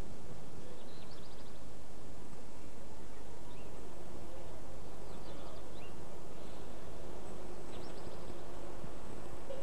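Steady low background rumble with faint, short bird chirps now and then, four or five times. A faint steady hum joins about seven seconds in.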